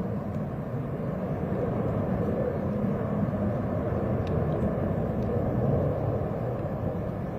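Steady low rumble of a jet airliner's engines heard from inside the cabin, with no change in level.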